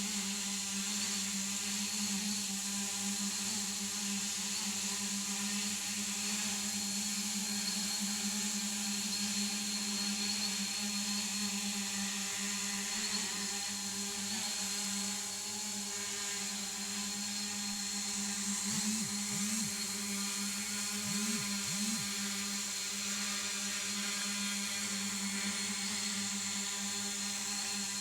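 Homemade multirotor drone's electric motors and propellers whirring steadily in flight, with a few quick dips in pitch about two-thirds of the way through.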